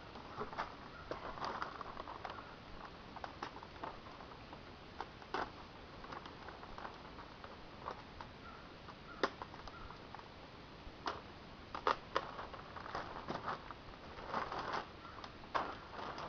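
Heavy 6 mil plastic sheeting crinkling and rustling as it is handled and cut, with scattered sharp clicks at irregular intervals.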